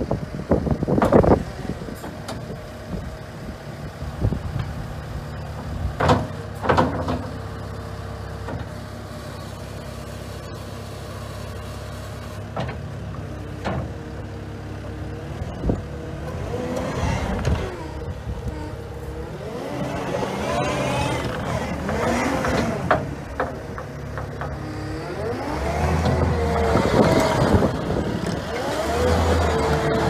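Cat 299D2 compact track loader running, its diesel engine holding a steady pitch while the loader arms come down, with a few sharp knocks in the first seven seconds. From about halfway, the engine pitch rises and falls over and over as the machine works and drives on its tracks.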